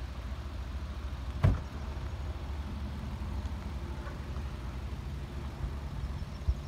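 Hyundai Veloster engine idling steadily with a low hum, with a single loud thump about a second and a half in as a car door shuts, and a lighter knock near the end.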